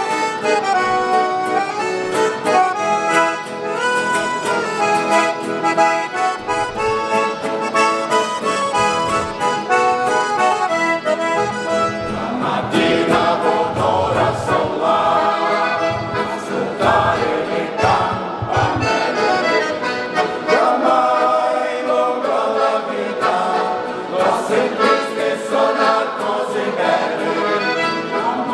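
Piano accordion playing a folk melody with acoustic guitar accompaniment, then a mixed choir joins in singing about twelve seconds in, in the Veneto-based Talian dialect.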